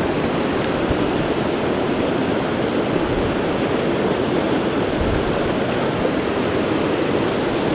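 Mountain creek running high and fast over boulders, a steady rush of whitewater; the creek is in heavy flow at about 500 cubic feet per second.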